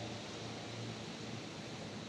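Steady, even outdoor background noise, a hiss-like rush with no distinct events.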